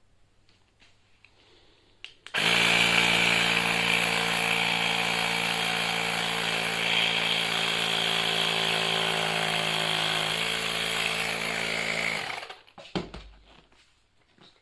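Small electric tyre inflator running for about ten seconds, starting and stopping abruptly, pumping a little air into a freshly fitted e-scooter inner tube to seat the tyre. Its note shifts slightly just before it stops.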